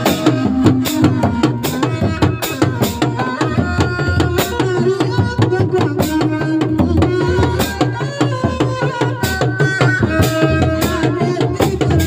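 Seni reak ensemble playing: dogdog drums beating a rapid, steady rhythm, with a held melody line that steps between pitches above the drumming.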